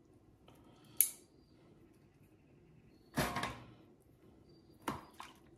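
Metal tongs clicking sharply against a stainless steel tray, then a marinated pork steak set down with a heavier thud in an empty stainless steel gastronorm pan about three seconds in, followed by two lighter clicks near the end.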